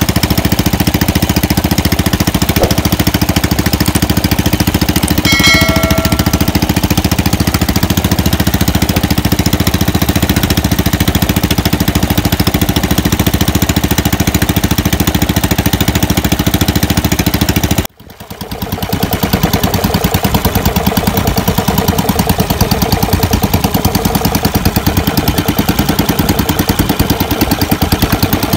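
Small wooden fishing boat's engine running steadily under way, with a fast, even thudding beat. A short high tone sounds about five seconds in, and around eighteen seconds in the sound cuts out for an instant and fades back in.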